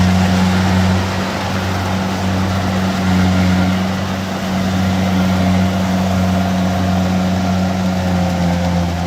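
An engine running steadily at an even speed, a low, constant hum that hardly changes.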